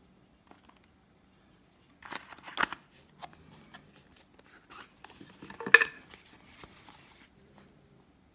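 Handling noise from a Zippo lighter's presentation box being picked up and turned over: rustling and small clicks, with a sharp knock about two and a half seconds in and a louder one near six seconds.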